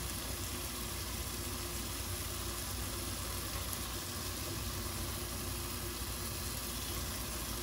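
Steady, even sizzling of seasonings frying in a hot pot.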